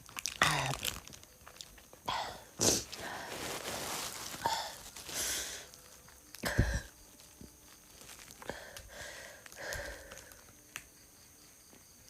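A woman coughing and retching in irregular bursts, with breathy gasps between; the loudest bursts come about a quarter of the way in and just past halfway.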